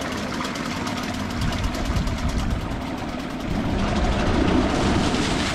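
Hangkai 6 HP two-stroke outboard motor running in forward gear with its leg in a test bucket during break-in, a steady buzzing run that grows louder about three and a half seconds in with the throttle grip in hand, then drops back near the end.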